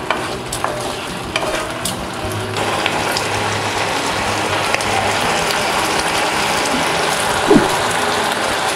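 Soy-chilli sauce with onion and bell pepper sizzling and bubbling in a nonstick wok. It grows louder about two and a half seconds in, with a few light clicks in the first couple of seconds.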